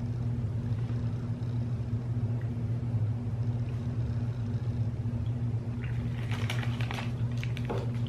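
A steady low hum of room background noise, with a few brief soft crackles and rustles about six to seven and a half seconds in and again near the end, from the soft-baked snack bars being handled and eaten over their wrappers.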